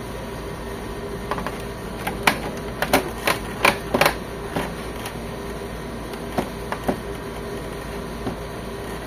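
Short sharp clicks and knocks from handling the printer's scanner unit as its side lock is pressed and the side is worked free, clustered in the middle with a few more later, over a steady low hum.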